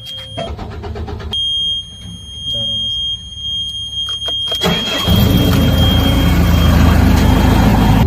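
A road roller's diesel engine being started with the ignition key: a steady high warning beep sounds with the key on, then about five seconds in the engine cranks, catches and runs loudly.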